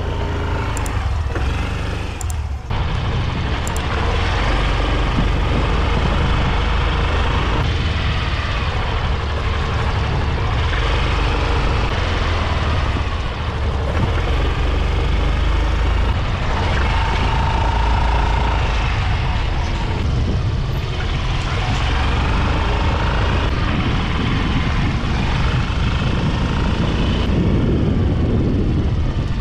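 Yamaha Grand Filano scooter being ridden: engine and road noise under a steady rush of wind over the microphone.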